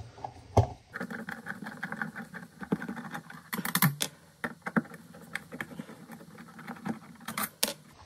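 Phillips screwdriver backing out the mounting screws of an electrical outlet, a run of small irregular clicks and scrapes of metal on metal. A few louder clicks come about three and a half seconds in and again near the end.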